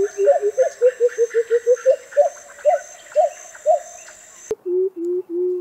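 Senegal coucal calling: a fast run of low hooting notes that speeds up, with higher upslurred notes about every half second. After an abrupt break about four and a half seconds in come three longer, steadier low hoots.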